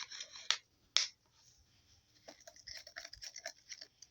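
A spoon stirring slime activator mixed with water in a container: three sharp clicks in the first second, then a run of quick light clicks and scrapes.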